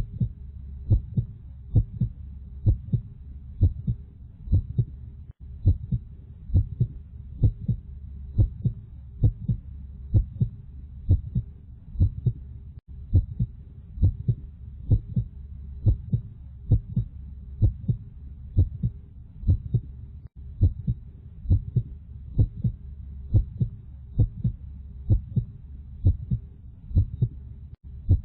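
Heartbeat sound: a steady, regular rhythm of paired low thumps, a little over one beat a second, over a steady low hum.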